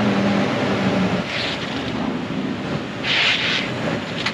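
Lexus GX460's 4.6-litre V8 running just after being started, as the SUV is rolled backward and forward to settle its suspension, with two short bursts of hiss about a second and three seconds in.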